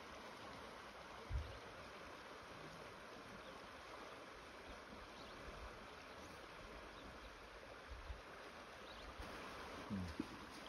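Faint, steady rush of flowing river water, with a few soft low thumps about a second in and again near the end.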